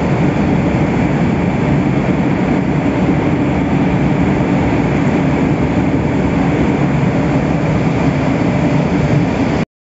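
Steady machinery rumble and hum from a running continuous colour coating line, with coated steel strip moving over its rollers. It cuts off suddenly near the end.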